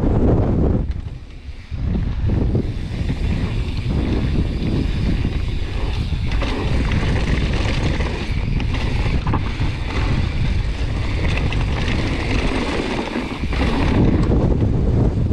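Gale-force wind, over 100 km/h, buffeting a helmet-mounted action camera's microphone: a loud, continuous rumble with a brief lull about a second in.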